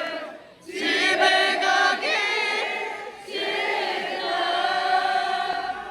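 Audience singing along in unison, a crowd chorus of many voices singing phrases of a Korean pop song with short breaths between lines.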